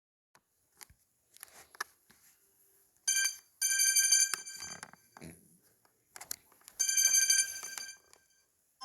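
Samsung Galaxy Tab A 8.4 tablet's speaker sounding three short bursts of a bright, chiming ringtone, about three, three and a half and seven seconds in, with faint taps and handling clicks before and between them.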